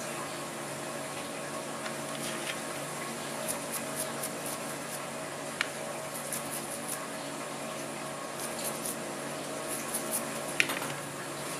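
A small brush scrubbing steel ball bearings from a Shimano Ocea Conquest reel in a plastic box of lighter fluid. It comes in short scratchy strokes, with a few sharp clicks of bearings and plastic, the loudest near the end. A steady fan-like hum runs underneath.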